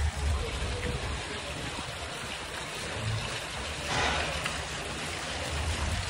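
Water from a fountain pool splashing and trickling steadily, with a brief louder rush of water about four seconds in.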